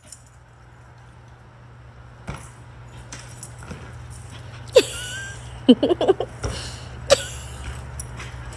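Dog giving a few short, sharp barks, a quick run of them about halfway through, over a steady low hum.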